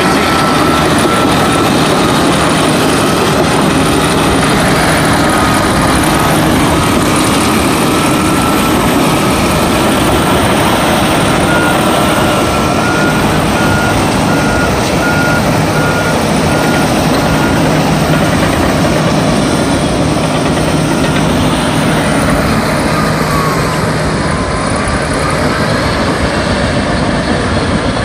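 Caterpillar crawler bulldozers' diesel engines running as they push wet sand through dredge slurry, over a steady loud rush of noise. A backup alarm beeps at an even pace through the middle stretch.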